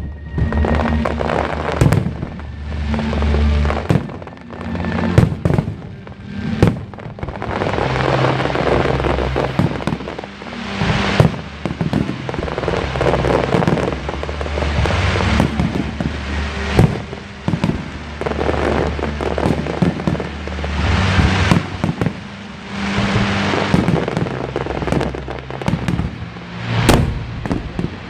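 A fireworks display: aerial shells bursting one after another in sharp bangs, with waves of dense crackling, over music with a steady low bass line.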